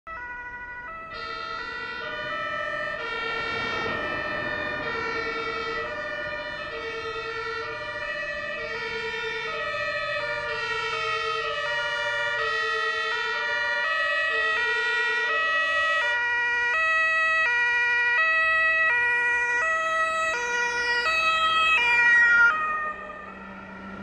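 German fire-engine two-tone sirens (Martinshorn) from several fire-brigade vehicles, overlapping, alternating high and low notes. They get louder as the vehicles approach, drop in pitch as they pass, and cut off suddenly about 22 seconds in.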